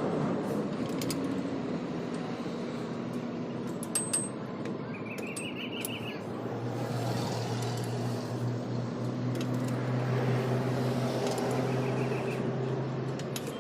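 Workshop noise during a truck rear-axle repair: a few sharp metallic clicks, a short run of high chirps twice, and a steady low hum that sets in about halfway through.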